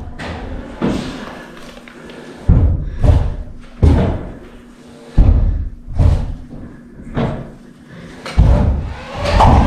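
Heavy footsteps thudding on a hard floor or stairs, about nine irregular thuds roughly a second apart.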